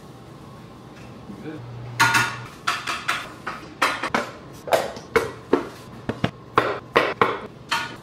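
Kitchen clatter: a string of sharp knocks and clinks from utensils, dishes and pans being handled, roughly two a second, starting about two seconds in, over a low steady hum.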